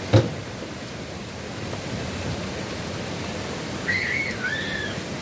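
Steady rush of hurricane wind and rain. A single sharp knock comes just after the start, and a short high warbling, whistle-like call sounds near the end.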